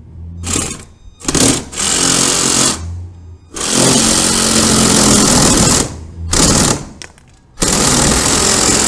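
Battery-powered saw cutting through wood, its motor and blade running in short start-stop bursts with one longer run of about two seconds in the middle. The saw is one the user says is not really meant for wood.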